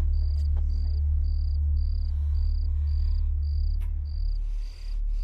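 Suspense background score: a deep, steady bass drone under a high, cricket-like chirp that pulses evenly about twice a second.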